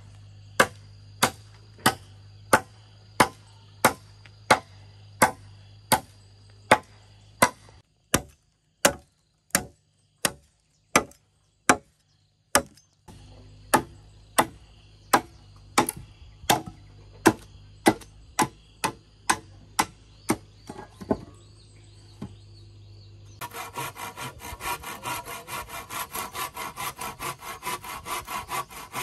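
A machete chopping into a wooden pole, about one and a half sharp strikes a second for some twenty seconds. After a short pause, a handsaw starts sawing across a pole in quick back-and-forth strokes.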